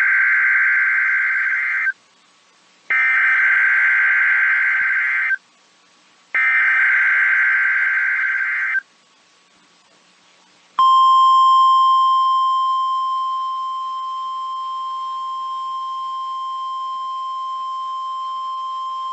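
NOAA Weather Radio alert signals. First the SAME digital header: three warbling data bursts of about two and a half seconds each, a second's gap between them. About eleven seconds in comes the weather radio warning alarm tone, one steady pitch that starts loud, eases down over its first few seconds and then holds. It is the alarm that switches on weather radio receivers, sent here as the weekly test of the alarm system.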